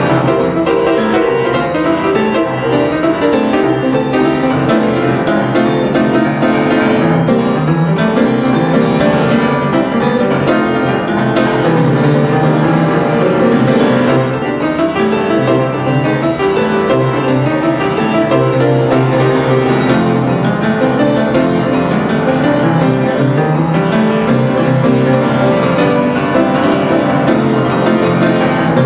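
Blues piano solo: an instrumental break in a song, with no singing.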